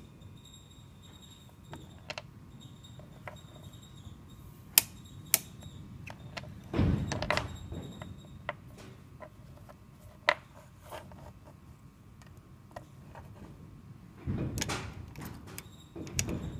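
Small metal ball bearings from skate wheels clicking as they are set down on a magnet and handled, a few sharp clicks among fainter ticks, with two stretches of rustling handling noise.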